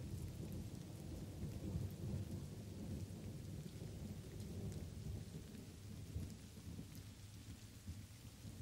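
Thunderstorm: low rolling thunder rumbling over light rain. The rumble swells about two seconds in and then eases slowly, with faint scattered raindrop patter throughout.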